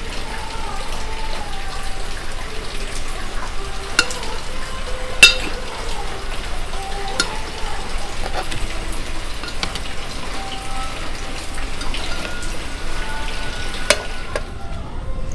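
Crab and brinjal curry in tamarind gravy simmering in the pan, a steady sizzling hiss with a few sharp clicks.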